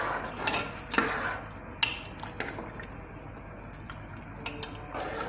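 Metal ladle stirring a thick tomato stew in an aluminium pot, with wet stirring noise and several sharp clinks of the ladle against the pot, most of them in the first two and a half seconds.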